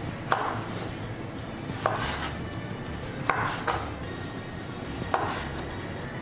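Kitchen knife cutting plums on a wooden cutting board: sharp knife strokes against the board, several of them in quick pairs, coming about every second and a half.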